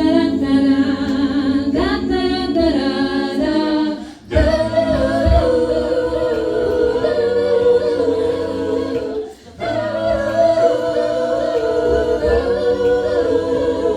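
A cappella vocal group singing wordless close harmonies, with two brief breaks about four and nine and a half seconds in.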